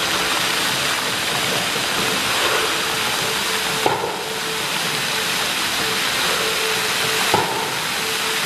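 Seattle Center's International Fountain: water jets hissing and splashing steadily into the basin, with two sudden thumps, about four and seven seconds in, as tall jets shoot up.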